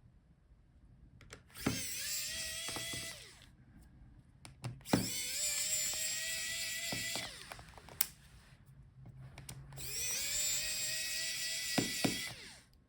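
Small electric screwdriver running in three bursts of about two seconds each, each spinning up to a steady whine, backing out the laptop's battery screws. Light clicks of small parts and tools between the runs.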